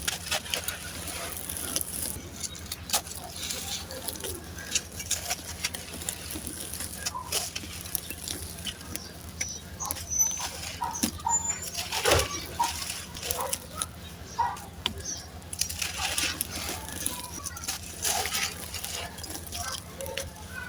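Dry, gritty sand cement chunks crumbling and crunching, an irregular run of sharp crackles and crunches.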